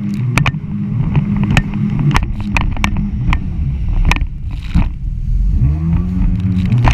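Jet ski engine running hard at speed over choppy water, with repeated sharp knocks as the hull slaps the chop. The engine pitch rises about five and a half seconds in.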